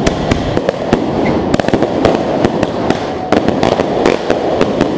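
"Machine Gun SL" consumer firework cake firing: a rapid, irregular string of sharp bangs and crackles, several a second.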